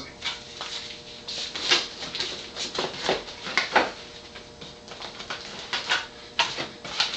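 Irregular light clicks and rustles of hands handling computer parts and packaging around an open desktop PC case.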